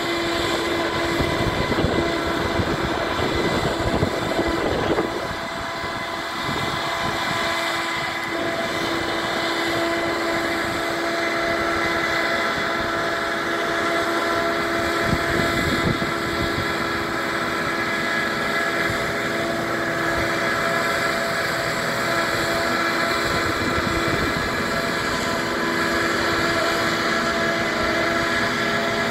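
Boat travel lift's engine and hydraulics running, a steady machine hum with several held tones over a low rumble.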